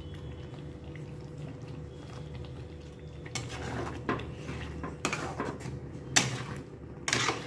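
Metal spatula scraping and clinking against a metal kadai as thick paneer gravy is stirred. There are a handful of separate strokes from about three seconds in, the loudest near the end.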